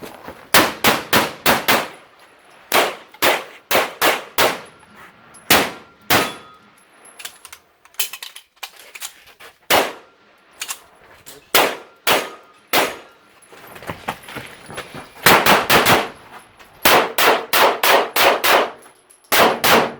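STI Edge pistol fired rapidly in quick pairs and strings of shots, with short pauses between strings, during a USPSA stage run.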